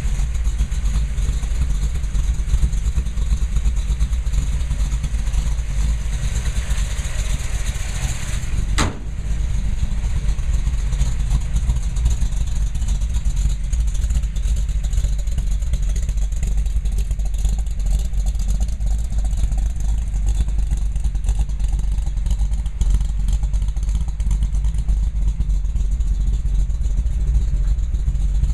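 1972 Ford pickup's V8 engine idling steadily, with one sharp click about nine seconds in.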